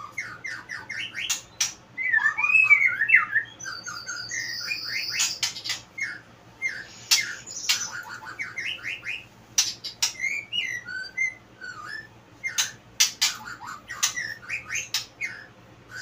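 White-rumped shama (murai batu) in full song: a rapid, varied run of short whistled and chattering notes, mixed with many sharp clicks.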